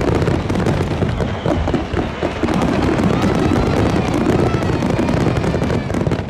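Loud, dense barrage of fireworks shells bursting in quick succession, a continuous rumble of booms with crackling on top, easing off at the very end.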